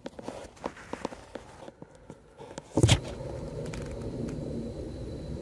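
Small clicks and knocks of a metal T-nut being handled and fitted over a nail into a hole in a goalie skate's boot, with one louder knock a little under three seconds in, followed by a steady low noise.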